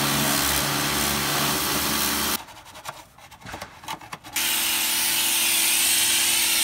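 A motor-driven machine running under a loud, even hiss with a steady hum, in two stretches of about two and a half seconds each, with a few clicks and knocks in the gap between them.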